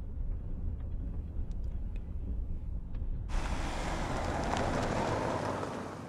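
Low, steady road rumble inside a moving car. About three seconds in, a loud rushing noise cuts in abruptly, then fades away near the end.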